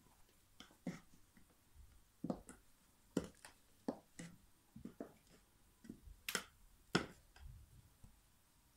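Black platform high heels stepping on a wooden floor: a slow, irregular run of sharp clacks, the two loudest a little past the middle.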